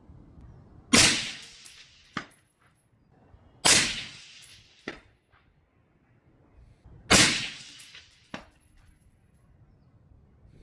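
Three suppressed shots from a 5.56/.223 AR-15 rifle, spaced about three seconds apart. Each is followed about a second later by a much fainter sharp crack.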